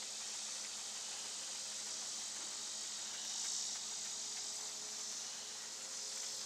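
Steady, high-pitched drone of insects calling, swelling slightly about halfway through.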